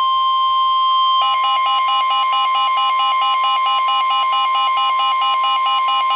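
Emergency alert tones for a tornado warning: a steady, unbroken beep-tone like the weather radio's warning alarm. About a second in, a second alarm joins it, stepping rapidly between pitches several times a second.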